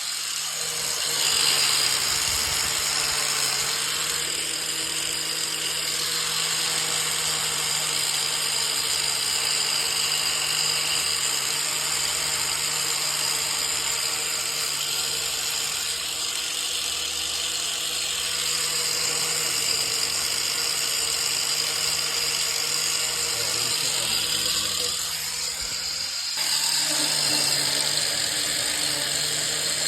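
A power tool running steadily with a continuous hiss. It eases off briefly about 25 seconds in, then runs on.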